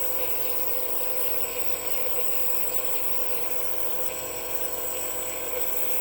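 Nebulizer running: a steady mechanical hum with an even hiss over it.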